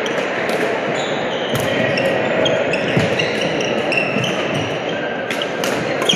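Badminton rally: rackets striking the shuttlecock in sharp smacks, with shoes squeaking briefly on the court floor, over a steady background of hall chatter.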